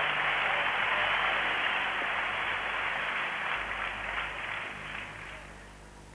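A crowd applauding, the applause dying away over the last two seconds.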